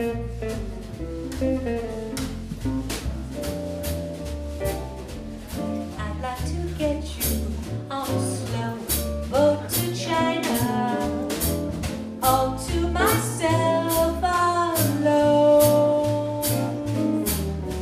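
Jazz quartet of amplified archtop guitar, upright bass and drum kit playing a swing intro, with a woman's voice beginning to sing about two-thirds of the way through.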